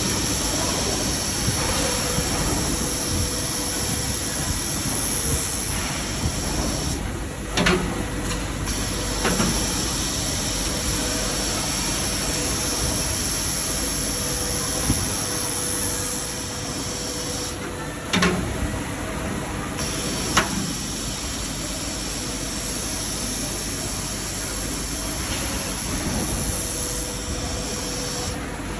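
Industrial laser welding machine running with a steady hiss. Twice the high part of the hiss cuts out for a second or two, with sharp clicks around each gap.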